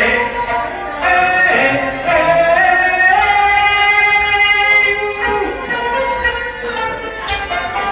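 Teochew opera music: a singing voice over bowed-string accompaniment, rising into a long held note a few seconds in, then moving through shorter notes.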